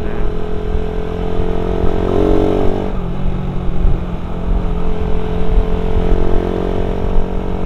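Suzuki Satria FU's single-cylinder engine running while riding, heard through a C-type header pipe and stock muffler. The revs climb from about two seconds in, drop suddenly at about three seconds, as at a gear change, then hold steady.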